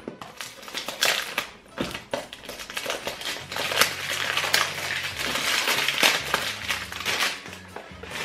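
Cellophane wrap crinkling as it is torn and peeled off a perfume box: a few sharp crackles, then dense, continuous crinkling from about three seconds in.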